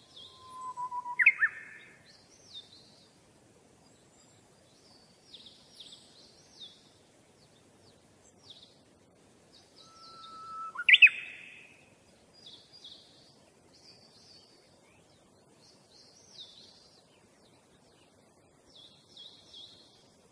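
A small bird chirping: short high chirps every second or two, with two louder calls, about a second in and again about halfway, each a brief steady whistle that sweeps sharply upward.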